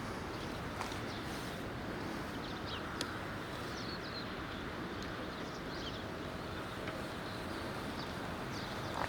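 Steady low background rumble with scattered faint bird chirps and a few sharp clicks.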